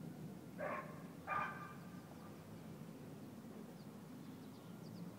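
A dog barks twice, about 0.7 s apart, in the first second and a half, over a low steady rumble, with faint high chirps later on.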